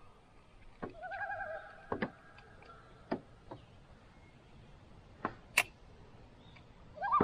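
Common loon giving a wavering tremolo call about a second in. Several sharp knocks and clicks come at intervals, the loudest about two seconds in and just past five and a half seconds.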